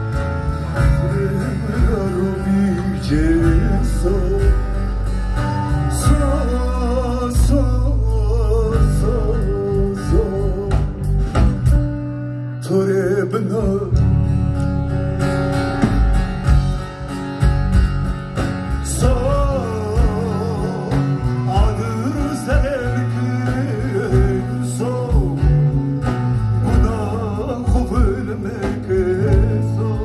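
A live band playing a song: a man singing with a wavering voice over a bağlama, electric guitar and a steady bass line, with drum strokes keeping the beat.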